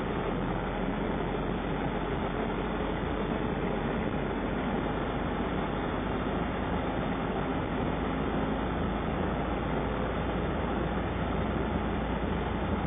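Ambulance driving on a snow-covered road, heard from inside the cab: steady engine and tyre noise with no sudden changes.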